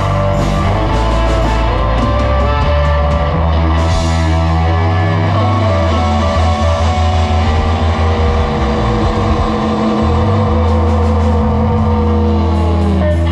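Live blues-rock band playing loud through amplifiers: electric guitar over drums and a heavy low end, with long held notes in the second half.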